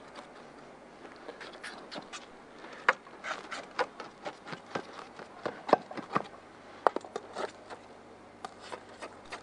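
A knife blade run around the inside edges of a baking tray of baked macaroni to loosen it from the sides, scraping and clicking irregularly against the tray, with a few sharper knocks about three, six and seven seconds in.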